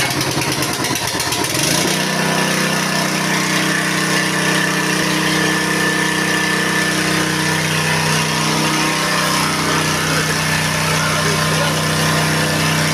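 Small petrol engine of a Kisankraft KK-P 999 portable power sprayer, pull-started. It catches within about two seconds and then runs steadily.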